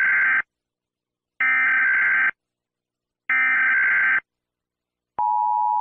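Emergency Alert System SAME header: three short bursts of digital data tones about a second apart, opening a civil danger warning. About a second before the end, the steady two-tone EAS attention signal begins.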